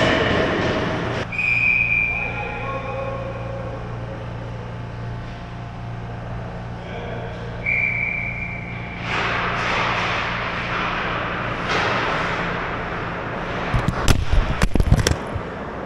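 Ice rink hall ambience with a steady low hum, then a short run of loud knocks and rattles about fourteen seconds in as the camera is taken off the goal net.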